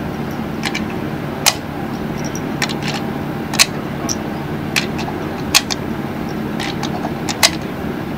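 Brass .308 Winchester cartridges being pressed one at a time into a rifle magazine, each seating with a short, sharp metallic click, about eight or nine clicks at uneven intervals. A steady low hum runs underneath.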